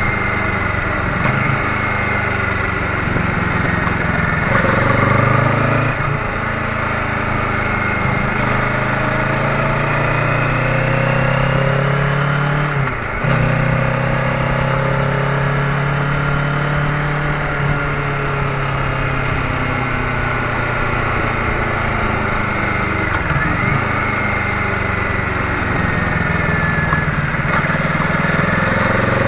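Kawasaki Ninja 650's parallel-twin engine running under way, its revs slowly rising and falling, with a quick break about halfway through like a gear change.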